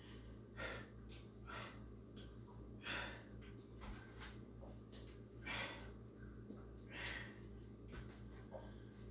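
A person breathing hard during exercise: short, forceful breaths about every one to two seconds, faint, over a steady low hum.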